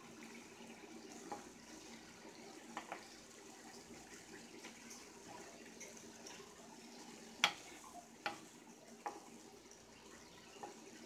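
Wooden spatula stirring chicken and broccoli through a simmering sauce in a cast-iron skillet: a faint, steady sizzling hiss with a few light knocks of the spatula against the pan, the sharpest about seven seconds in.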